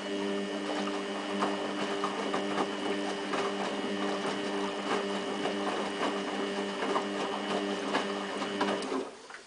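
Samsung WF8804RPA front-loading washing machine running in its final rinse: a steady electric hum with a busy scatter of clicks and ticks, which cuts off about nine seconds in.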